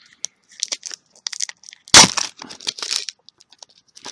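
Trading card booster pack wrapper crinkling and being torn open by hand in a string of short crackles, with one loud sharp rip about two seconds in; the pack is hard to open and takes force.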